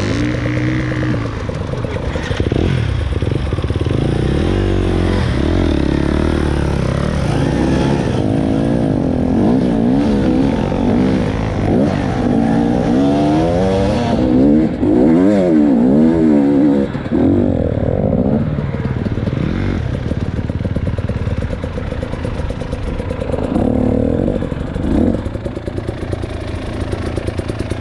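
A motor engine running, its pitch rising and falling again and again, with the quickest swings in the middle of the stretch.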